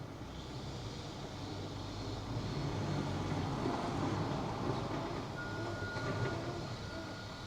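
A train passing: a low rumble that swells over the first few seconds and holds, with a thin, steady high squeal for about a second near the end.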